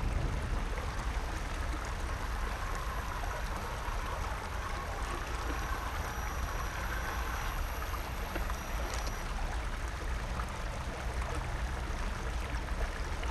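Steady rush of a flowing creek, with a low rumble underneath.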